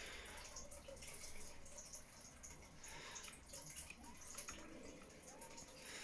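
Pencil point scratching and tapping faintly against a metal fender bracket and chassis rail as it marks the drill holes: soft scattered light ticks.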